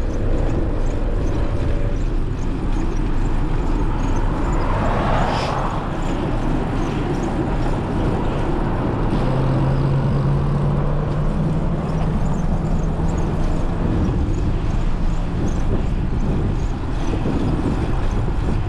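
Road traffic around a moving bicycle: a steady rush of wind and road noise, a vehicle passing about five seconds in, and a low engine hum from about nine to fourteen seconds.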